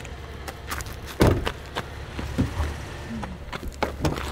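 Chevrolet Traverse SUV door handled outdoors: a door thumps shut about a second in, followed by a few lighter clicks and knocks at the door, over a steady low rumble.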